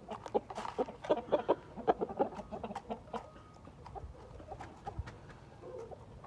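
Chickens clucking in a quick string of short calls, busiest in the first three seconds and sparser after.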